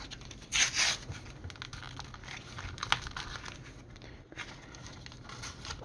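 Plastic blister packs of Pokémon cards crinkling and rustling as they are handled, with a louder crinkle about half a second in and scattered small clicks after.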